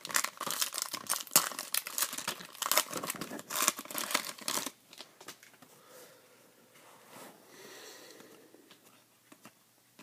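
Foil trading-card pack wrapper being torn open and crinkled in the hands, a dense crackle that stops about halfway through. After that only faint, sparse handling sounds remain.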